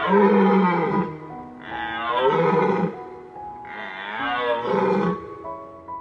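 Three drawn-out animal calls, each about a second long with a bending pitch, over gentle background music.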